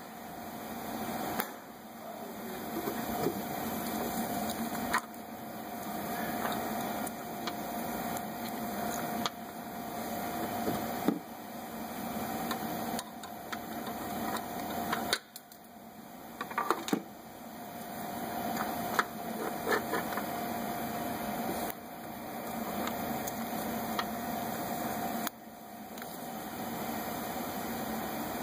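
A steady hum with a faint whine, over which come a few scattered clicks and knocks of a ratchet, a long extension and a spark plug socket at work on a Subaru H6 engine's spark plugs. The hum cuts out and comes back several times.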